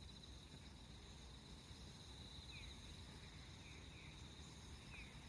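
Faint outdoor insect trilling, a steady high pulsing buzz, with a few short falling chirps from about halfway on.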